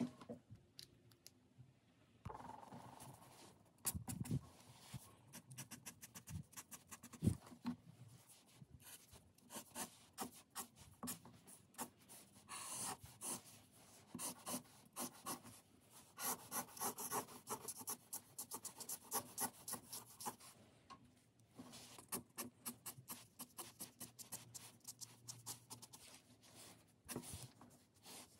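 Grey art marker stroking across drawing paper in quick, repeated scratchy strokes as it lays in shading, after a quieter first couple of seconds. There are two sharper knocks about four and seven seconds in.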